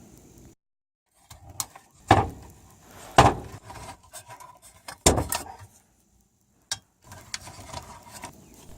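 Sharp metallic knocks and clatter from handling the air handler's sheet-metal cabinet and blower while taking it apart, three of the knocks loud.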